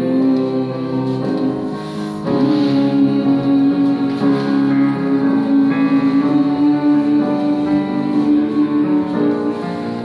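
Choir humming long held notes as a breathing warm-up. The humming breaks briefly about two seconds in and resumes a step higher, then holds steady.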